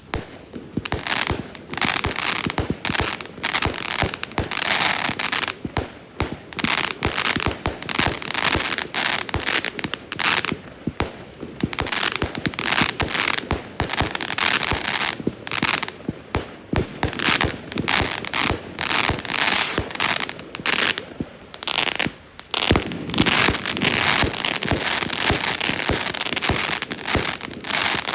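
Fireworks going off in rapid succession: a dense, continuous run of bangs and crackling, turning into a thicker, louder crackling barrage near the end.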